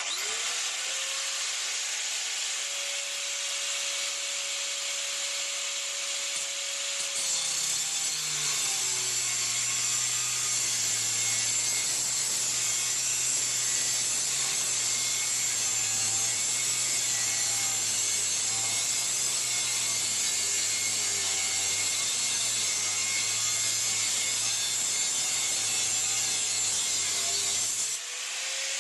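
Angle grinder with a thin cutting disc, spinning up and running free for several seconds, then cutting through 40 by 5 mm steel flat bar. The motor's whine drops and wavers under the load for about twenty seconds, then rises again near the end as the disc comes free of the cut.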